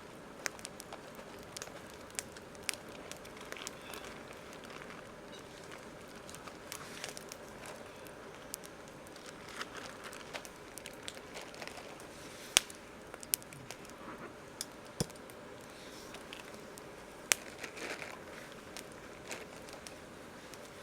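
Campfire crackling, with irregular sharp pops and snaps over a low steady hiss; two pops stand out as louder, a little past halfway and again near the end.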